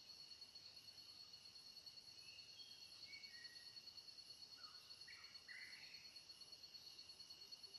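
Faint forest insect chorus: a steady, rapidly pulsing high trill over a few other steady high hums. A few soft, short bird whistles and chirps come in the middle.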